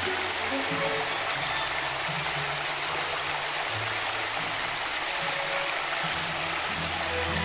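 Water of a small stream rushing and splashing over rocks in a steady hiss, with held low music notes underneath that change pitch every second or so.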